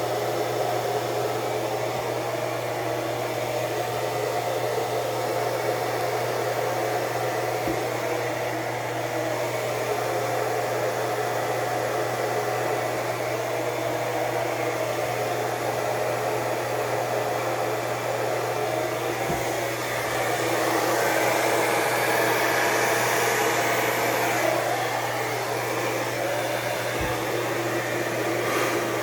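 Hair dryer blowing steadily, pushing wet acrylic paint outward into a bloom. It gets louder for a few seconds about two-thirds of the way through.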